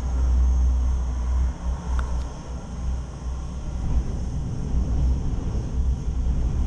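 Low, unsteady rumble inside a moving cable car gondola cabin as it travels along the cable, with a faint click about two seconds in.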